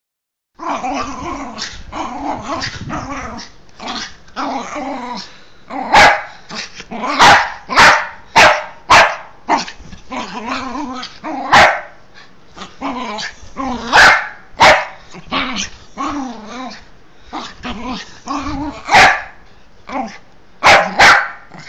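Small dachshund growling and grumbling for the first few seconds, then barking in about a dozen sharp, loud barks with growls in between, the sounds of excited, hyperactive play.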